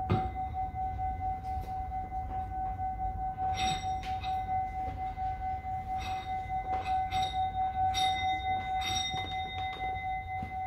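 Tibetan singing bowl ringing. It is struck sharply right at the start, then a single steady tone holds on without fading, while its higher overtones swell in and out.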